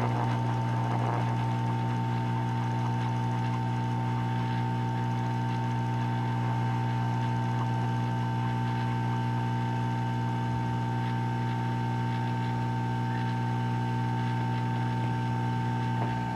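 Hot air rework station running, its blower giving a steady hum with a higher whine, as it reflows the solder on a tiny surface-mount diode.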